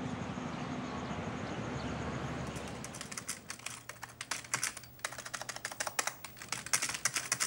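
Typing on a computer keyboard: a quick, irregular run of key clicks that starts about three seconds in, after a steady background hiss.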